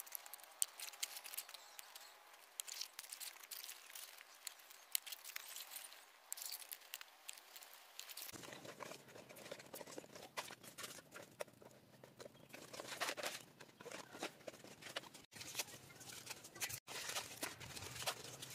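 Large fresh leaves rustling and crinkling as they are handled and pinned together with small twig pegs, in a faint run of small, sharp crackles and clicks. A low steady background noise comes in suddenly about eight seconds in.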